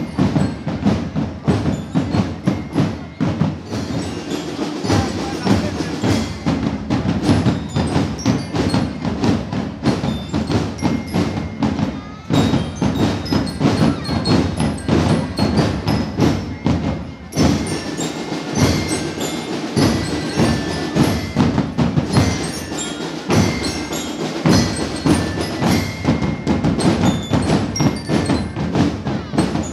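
Marching band playing: rapid, dense drum strokes with the bright ringing notes of bell lyres (glockenspiel) over them.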